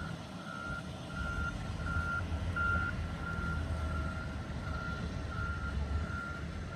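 Backup alarm on construction equipment beeping steadily as it reverses, about one and a half to two beeps a second, over the low rumble of a diesel engine.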